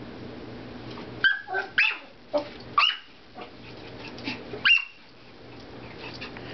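Small Chihuahua/Dachshund/Yorkie/Shih Tzu mix puppy giving a quick series of short, high-pitched yips and barks in play, bunched between about one and five seconds in.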